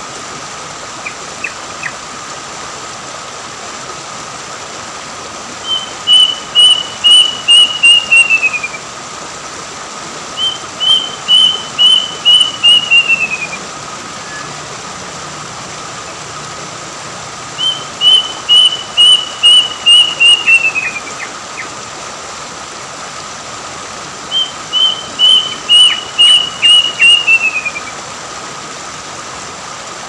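A kedasih (plaintive cuckoo) calling four times. Each call is a run of seven or eight clear whistled notes lasting about three seconds, level at first and falling in pitch at the end, with several seconds between runs. Under it is the steady rush of a shallow rocky stream.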